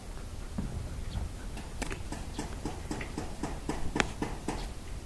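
A quick run of light, sharp clicks or taps, about four a second, starting about two seconds in and stopping shortly before the end, over a low steady background.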